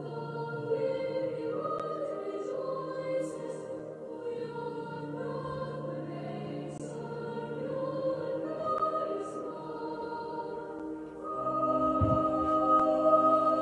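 Recorded choir singing a Christmas carol, played back through a smart speaker; the sustained voices swell louder near the end.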